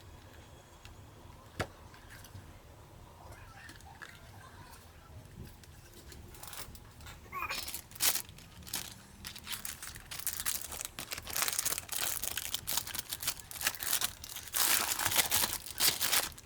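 A single sharp click, then crinkling and rustling, like plastic or paper being handled, starting about six seconds in and growing louder toward the end.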